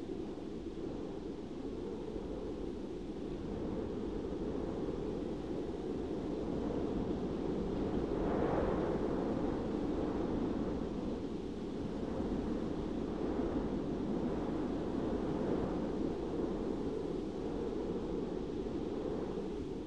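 Steady wind rushing, swelling in gusts a few times.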